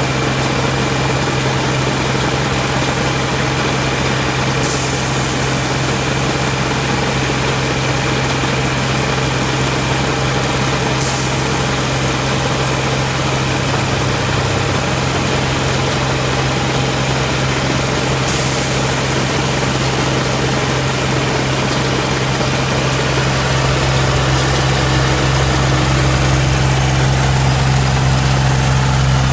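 Engine of a thermoplastic road-striping truck running steadily at low speed as it lays a line, a low even drone that gets a little louder near the end.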